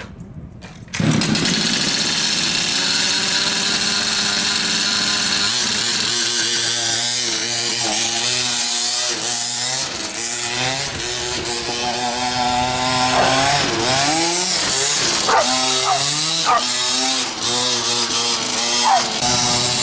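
Small two-stroke engine of a Carbon Fighter RC buggy catches about a second in and keeps running loudly. It revs up and down several times in the second half, a whine rising and falling in pitch as the buggy is driven.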